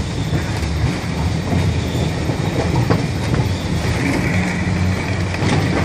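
Streetcar rolling along the track: a steady low rumble of wheels and running gear, with a couple of sharp clicks from rail joints and a thin high wheel squeal coming in near the end.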